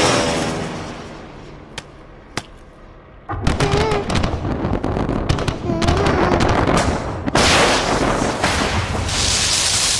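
Anti-aircraft artillery fire during an air raid. An aircraft engine fades out first, then come two sharp, separate cracks. From about three seconds in there is a dense crackle of shell bursts, and about seven seconds in it swells into a loud rushing blast.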